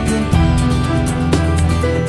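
Instrumental background music with a steady beat, its chords changing about every second.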